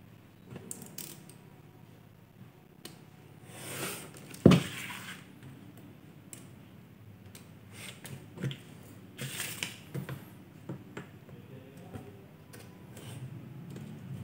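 Cutter knife slicing a printed sticker sheet along a steel ruler on a board: short scraping strokes with scattered clicks and taps of the ruler and knife, and one sharper knock about four and a half seconds in.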